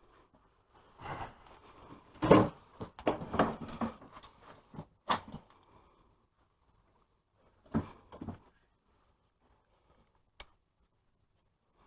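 Metal hand tools clinking and clattering in irregular bursts, with a few single sharp knocks later on.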